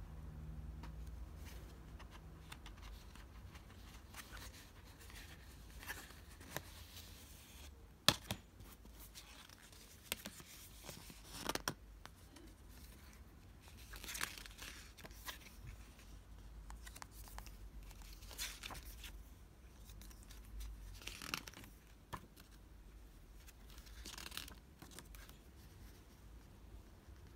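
Paper rustling and sliding as a CD's lyric booklet and folded paper insert are handled and their pages turned, in short scattered bursts, with one sharp click about eight seconds in.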